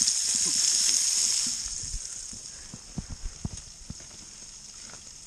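Deer steak sizzling in a cast iron skillet; the sizzle drops away about a second and a half in, and a few dull thumps follow.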